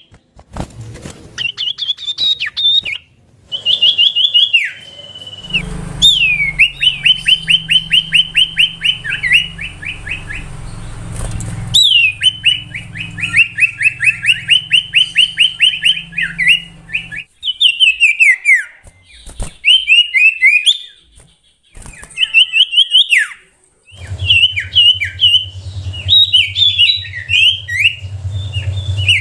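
Common iora (cipoh) singing: phrases of fast repeated whistled notes, each sliding down in pitch, broken by short pauses.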